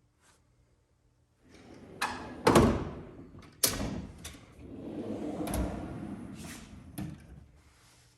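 Snap-on toolbox drawers sliding open and shut on their runners, with a longer sliding rumble in the middle. Several sharp clunks come as the drawers hit their stops.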